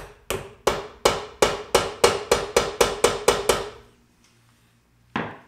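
Hammer carefully tapping a grease cap onto the wheel hub of a VW Golf 1 rear brake drum. A quick, even run of strikes, just under four a second, each with a short ring, stops a little before four seconds in, and one more strike follows near the end.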